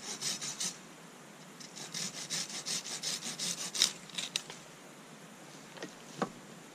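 Small hand saw cutting through a wooden branch in quick back-and-forth strokes, about four a second: a short run, a pause of about a second, then a longer run. A few sharp clicks and a single knock follow near the end.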